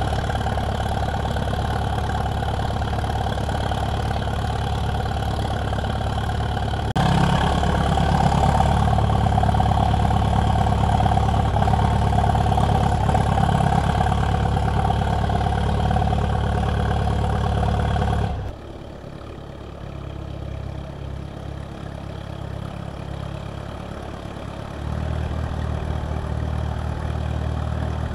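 Old farm tractor engines running as tractors are driven up and parked. The engine gets louder about seven seconds in, drops off sharply about two-thirds of the way through, leaving a quieter engine, and a louder engine comes back in near the end.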